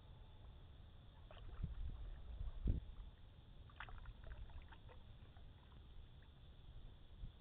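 Paddling a canoe: the paddle dipping and knocking against the hull, with small drips and splashes of water off the blade. The loudest knock comes about two and a half seconds in, over a low rumble of wind on the microphone.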